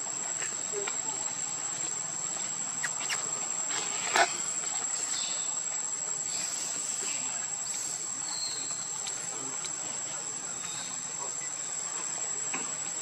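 Steady high-pitched insect drone, with scattered faint clicks and one sharp snap about four seconds in.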